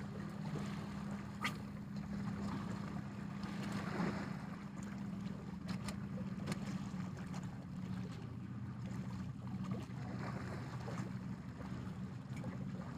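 Small waves lapping against shoreline rocks under a steady low hum, with a few faint clicks.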